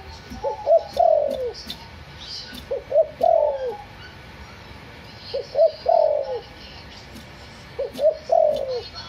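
Derkuku (spotted dove, white 'backspot' colour form) cooing in repeated phrases about two and a half seconds apart, four in all: each two or three short rising notes followed by a long falling coo.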